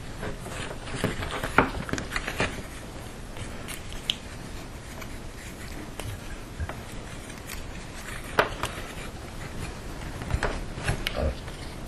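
Irregular rustling, scraping and small clicks of wires and lacing twine being handled while a cable is laced into a bundle, with a few sharper knocks.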